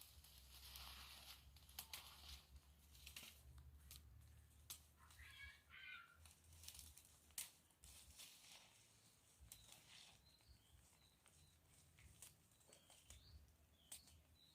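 Near silence: faint rustling and scattered clicks over a low rumble, with a few faint chirps about five seconds in and again near the end.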